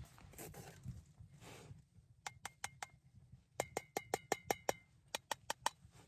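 A spoon clinking against a mug while stirring instant coffee. Quick, ringing clinks come about five a second, in three short runs.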